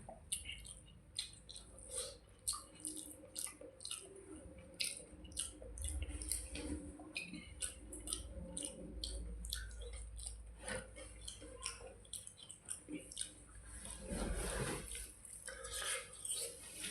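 Close-up wet eating sounds of panta bhat, rice soaked in water: irregular squishing and smacking clicks of the watery rice being worked and chewed, several a second, with a denser wet patch near the end.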